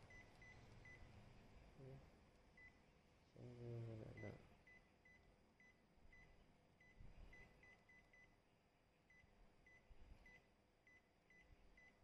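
Faint short high beeps from an Epson EcoTank printer's touchscreen control panel, one for each tap as the country list is scrolled. They come at irregular intervals, sometimes three or four in quick succession. A single short spoken word about four seconds in.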